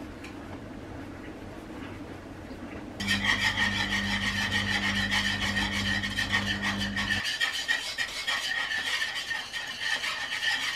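Small whisk beating a chicken-stock gravy in a pan: rapid scraping strokes that start about three seconds in and keep going. A low steady hum sounds along with the first four seconds of whisking.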